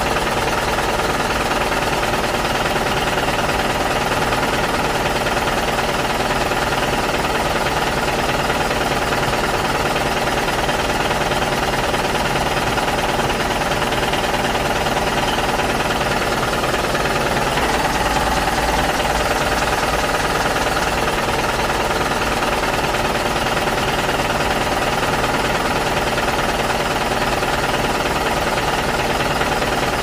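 Steady, rapid engine-like knocking clatter, unchanging in level, as of a diesel truck engine running.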